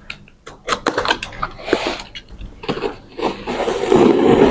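A cardboard box and its packing being opened and handled by hand: irregular rustling, scraping and small clicks, with a louder rustle near the end.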